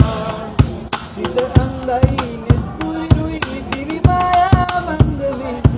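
A boy singing a song in a young male voice, holding and bending long notes, over a hand-struck drumbeat of about two strikes a second.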